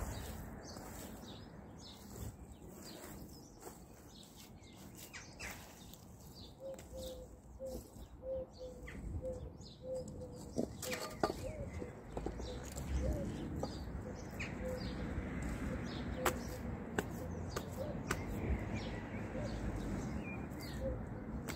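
Small garden birds chirping and singing, over a soft low rumble of gloved hands scooping and pressing wet soil daub onto a raised bed, with a few sharp clicks.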